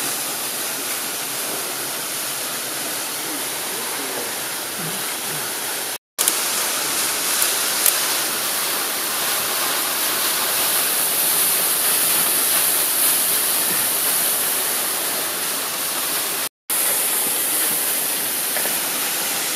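Steady rush of a waterfall, cut off twice for a split second, with a couple of short clicks about six and eight seconds in.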